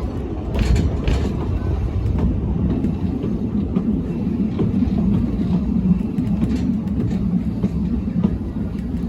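Narrow-gauge train on the move: a steady low rumble of the coach and its wheels running on the track, with a few faint clicks.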